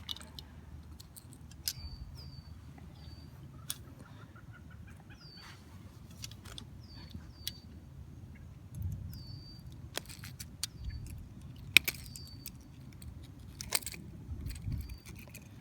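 Metal pliers and treble hooks clicking and rattling in scattered sharp ticks as the hooks are worked out of a bass's mouth, with a few soft thumps. A bird repeats a short, high, downward-sliding chirp every second or so.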